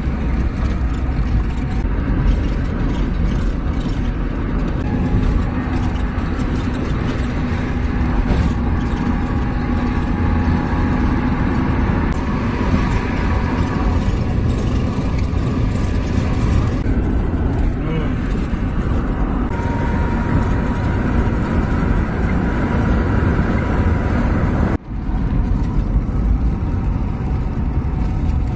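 Car cabin road noise while driving: a steady low rumble of engine and tyres, which cuts out for a moment near the end.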